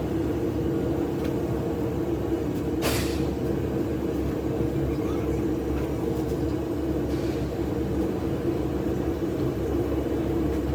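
A machine running with a steady drone, with a short hiss about three seconds in.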